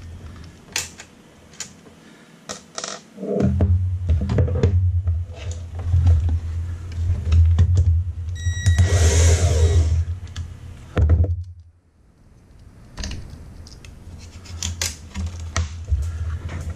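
A Ridgid cordless drill/driver runs steadily for about seven seconds, starting a few seconds in, with clicks over it as it works the screws of a solid-state relay. After a short pause come scattered clicks and clinks of screws and small metal parts being handled.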